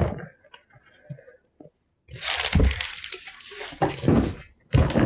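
A few light knocks of a cardboard box being handled, then from about two seconds in, plastic bubble wrap crinkling and rustling loudly as it is pulled out and pushed aside.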